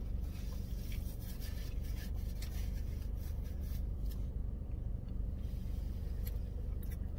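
Chewing a mouthful of burger and a paper napkin rustling against the face, with scattered small clicks, over a steady low hum inside a car's cabin.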